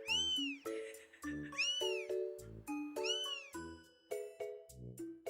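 Siberian kitten meowing three times, high thin meows that each rise and then fall in pitch, about a second and a half apart.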